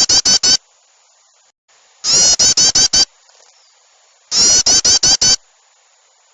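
Bird-lure recording of small songbirds' loud, harsh chattering calls. There are three bursts of about six quick, high notes each, roughly two seconds apart, and they sound harsh and distorted. The recording is played to excite and draw in yellow-vented bulbuls and other small birds.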